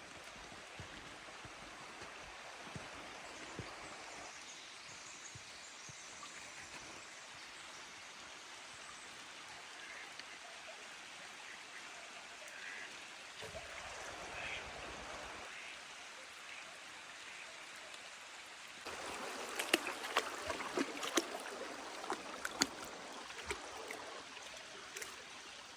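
Steady rushing of a stream's running water. About two-thirds of the way through it grows louder for several seconds, with a dense spatter of sharp ticks.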